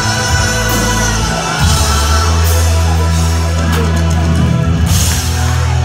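Live rock band playing a slow song, heard from within the audience: a male lead singer over sustained bass notes, electric guitars, keyboards and drums, with cymbal crashes several times.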